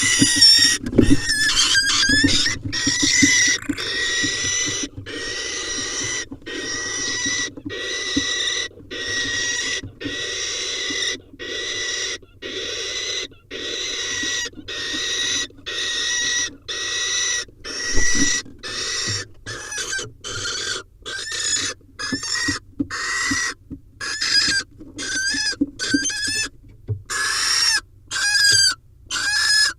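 Barn owls giving a long series of hoarse, hissing screech calls, roughly one a second. Past the middle the calls turn shorter and quicker, with a pitch that bends up and down.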